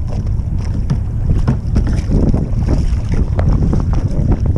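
Wind buffeting the microphone over a kayak paddled through choppy sea, with irregular splashing and lapping of water against the hull and paddles.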